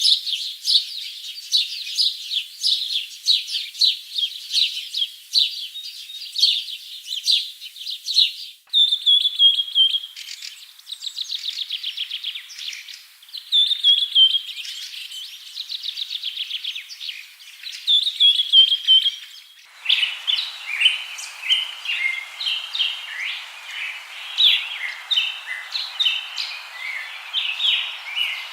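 Songbirds singing: quick repeated chirps, then trills and downward-slurred whistled notes, then choppy chirping over a steady background hiss. The recording is cut abruptly twice, about a third and two thirds of the way through.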